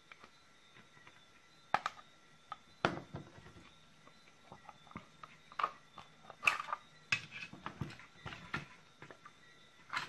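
Scattered, irregular plastic clicks and taps from a Makita BL1813G 18 V battery pack's plastic case and cell holder being handled and pried with a plastic pry tool as the cell pack is worked out of the housing.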